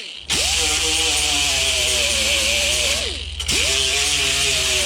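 Electric grinder grinding tack-weld heads flat on a steel fender patch panel: the motor whine spins up, sags slowly in pitch as it bears on the welds, drops out briefly about three seconds in, then spins back up and carries on.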